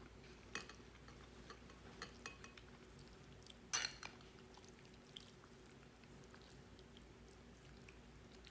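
A few small clicks and taps of cutlery against a dish over a faint steady hum, the loudest a short clatter about four seconds in.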